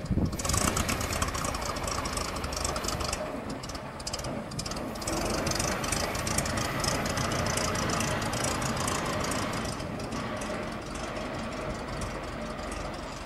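Ford Model T four-cylinder petrol engine of a small narrow-gauge locomotive running as the loco moves along, with a fast knocking, rattling clatter. It comes in suddenly at the start, eases about four seconds in, then runs steadily.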